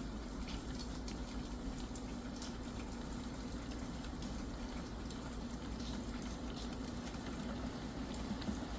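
Steady rain falling, with scattered single drops ticking sharply through the even hiss.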